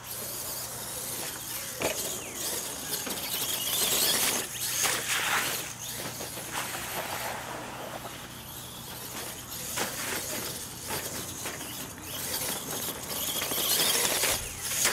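R/C mega truck running flat out on a dirt track: its motor and gears whirring while the tyres churn and throw dirt and gravel with a crackling hiss. It swells louder about four seconds in and again near the end.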